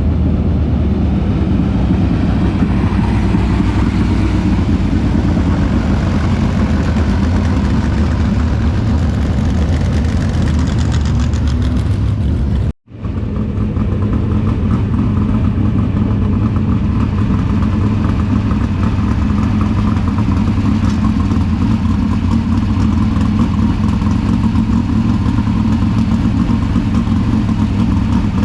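410 sprint car V8 engines running steadily. The sound drops out completely for a moment about 13 seconds in, then picks up again.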